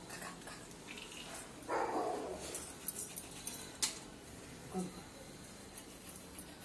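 Faint scraping and clicking of a pomfret being cut against an aruvamanai blade, with one sharp click near the middle. A short whine, like a dog's, sounds about two seconds in.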